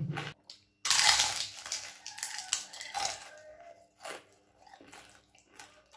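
Crispy deep-fried chicken wontons crunching as they are bitten and chewed. There is a loud crunch about a second in, then a few softer crunches that fade away.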